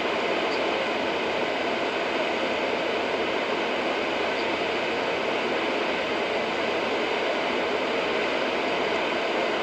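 Steady road and tyre noise inside a car's cabin at highway speed, an even rushing hiss with no engine note standing out.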